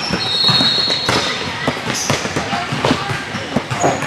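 Basketball game on a hardwood gym court: sneakers squeaking in short high chirps and a ball bouncing, amid scattered knocks from players' feet.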